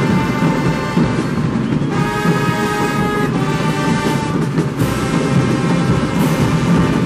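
Marching band playing live: brass section holding loud chords that change every second or so, over pounding bass drums with occasional cymbal crashes.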